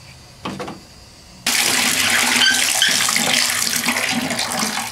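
Water running hard from an opened faucet, starting abruptly about a second and a half in, as the newly repressurized line is flushed and rust chunks from the old galvanized pipe come out. A short knock-like sound comes just before it.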